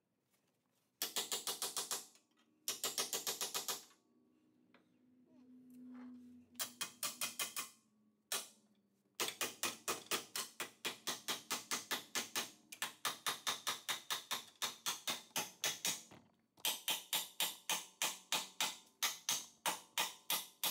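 Rapid, evenly spaced hammer blows on steel, about seven a second, while a motor mount is being worked loose in an engine bay. They come in two short bursts at first, then in long runs with brief pauses.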